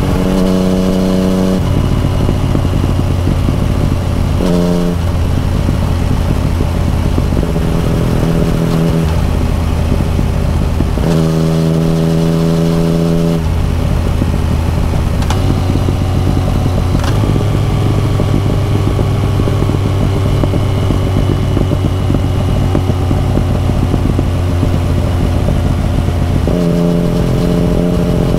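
Yamaha FZ-09's 847 cc inline three-cylinder engine running at a steady cruising speed, heard on the moving bike over constant wind and road rush. Its note holds one pitch but swells and drops back several times.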